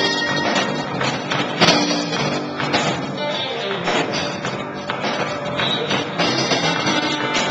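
Live band playing loud, guitar-led music with sharp repeated hits.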